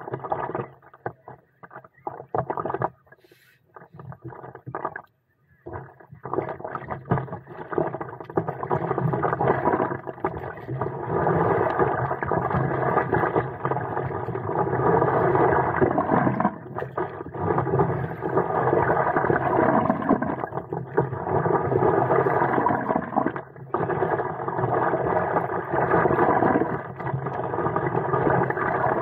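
Muffled wind and water noise on the microphone of a camera mounted on a stand-up paddleboard under way. It is choppy, with brief dropouts, for the first few seconds, then steady.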